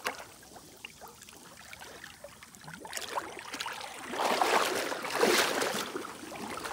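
Shallow lake water splashing and sloshing as a person wades and gropes with his hands, louder from about four seconds in.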